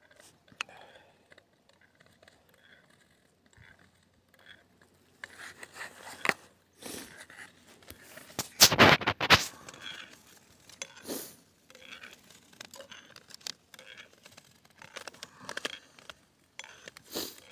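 Ice skate blades scraping and clicking on a sheet of clear natural ice in irregular strokes, with the loudest run of scraping a little past the middle.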